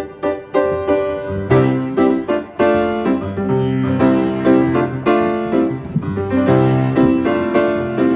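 Solo piano playing a slow worship-style chord progression, each chord struck and left to ring.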